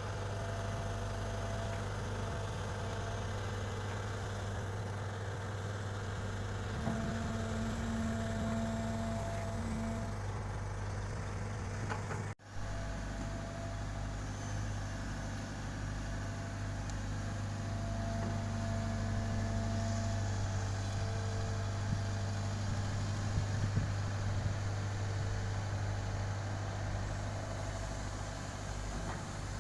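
Diesel engines of heavy construction machinery, an excavator and dump trucks, running steadily with a deep hum. The sound drops out for an instant about twelve seconds in.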